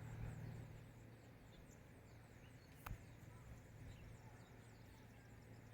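Near silence: faint high chirping over a low steady hum, with one sharp click about three seconds in.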